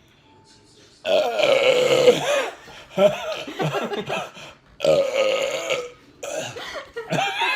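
A person burping loudly, a run of long, drawn-out burps one after another, starting about a second in, the first the loudest. These are soda burps from a belly full of carbonated Dr Pepper.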